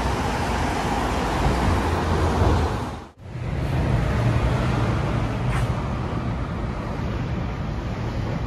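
Steady road traffic noise with a low rumble, mixed with wind on the microphone. The sound drops out for an instant about three seconds in, and the low rumble is stronger after it.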